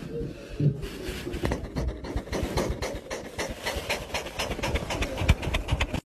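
A cat's fur and face rubbing and pressing against a phone's microphone at very close range, making dense scratchy crackling that grows busier after about a second. It cuts off suddenly at the very end.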